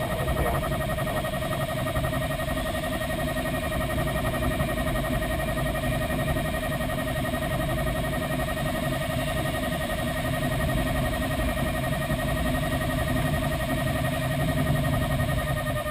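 Glider's audio variometer sounding a steady high tone, the signal that the glider is climbing, over the rush of air past the canopy of a Grob Single Astir.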